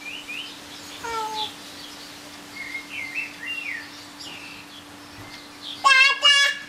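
Small birds chirping in the background with short, scattered calls. Near the end come two short, loud, high-pitched vocal calls with a wavering pitch.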